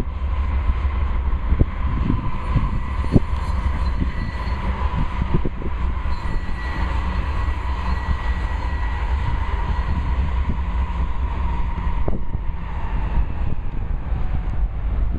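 Two GE diesel freight locomotives, a Dash 9-40CW and a Dash 8-40CW, passing close by: a deep steady engine rumble with a steady whine that fades about twelve seconds in, and occasional sharp clicks from the wheels on the rails.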